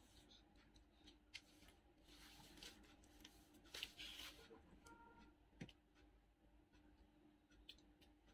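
Near silence with faint handling sounds: small clicks, two short crinkly rustles about two and four seconds in, and a soft thump a little later, as food and dip cups are handled at a table.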